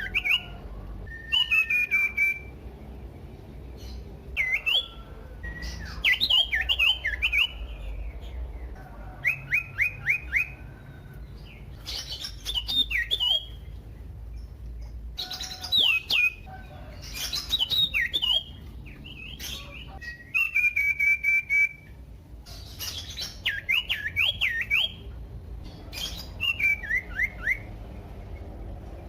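Common iora singing loudly and with much variety: short phrases of whistled notes sweeping up and down, some in quick runs of three or four, and a few held, trembling notes, each phrase following the last after a pause of a second or two.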